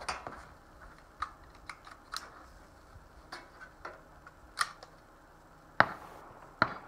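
A string of small clicks and knocks as a bolt-action CZ 457 .22 LR rifle is handled and settled onto a chair-back rest, then about six seconds in a single sharp, loud crack, the suppressed rimfire firing, followed by a smaller click.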